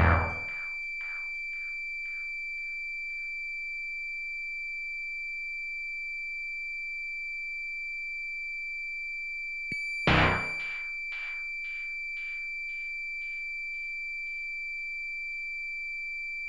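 Electronic music soundtrack: a steady high sine-tone drone, with two sharp struck hits, one at the start and one about ten seconds in, each repeating in fading echoes about twice a second.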